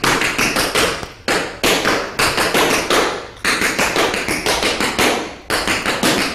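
Tap shoes striking a wooden floor in a fast tap-dance phrase: quick runs of crisp metal taps grouped into short phrases with brief breaks between them.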